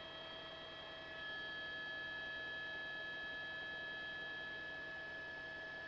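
Faint steady whine and hum with several fixed high-pitched tones over a low hiss, heard through a news helicopter's open intercom microphone. It grows slightly louder about a second in.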